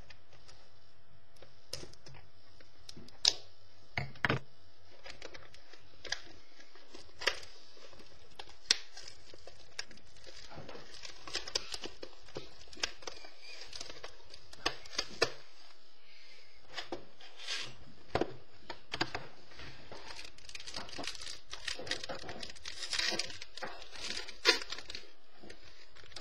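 Trading-card box and foil card-pack wrappers being torn open and crinkled by hand: scattered sharp crackles and snaps, with a denser stretch of crinkling near the end.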